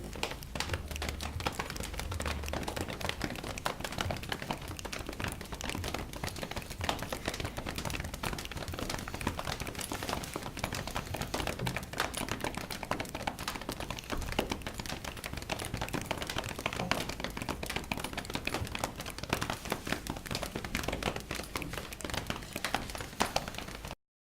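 Hand-made Foley sound effect: a dense, irregular run of small taps and clicks that cuts off suddenly near the end.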